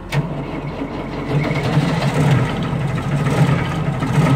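Bomag's air-cooled Deutz four-cylinder diesel cold-starting with no glow plugs or preheat: a click as the starter engages right at the start, then the engine turns over and catches, its uneven running rumble growing louder over the first couple of seconds.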